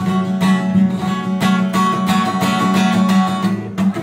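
Steel-string acoustic guitar strummed in a steady run of chords, each stroke ringing into the next.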